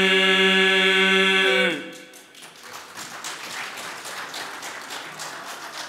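Male a cappella folk group singing in the Krajina style (pjevanje na glas/bas), holding one long steady chord that bends slightly down and cuts off about two seconds in. A quiet pause follows, with faint hall noise and scattered small taps.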